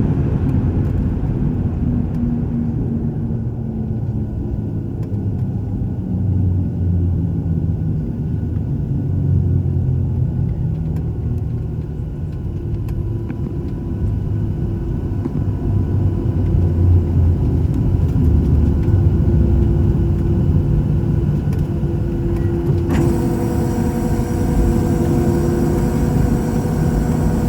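Cabin noise inside a Boeing 737-700 on the ground after landing: a steady low rumble from the engines and airframe, with a few faint steady tones. About 23 seconds in, a hiss and several higher whining tones come in abruptly and hold.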